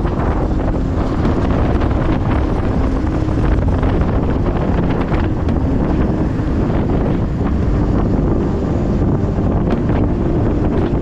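Wind buffeting the microphone of a motorcycle travelling at speed, a loud steady rush with a low rumble and a faint hum underneath.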